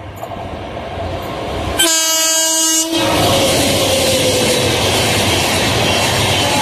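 A WAP-7 electric locomotive hauling an Indian Railways Shatabdi Express approaches with a rising rumble and sounds its horn once, for about a second, a little under two seconds in. Then the train passes at speed, with the loud, steady rush and clatter of the coaches rolling by.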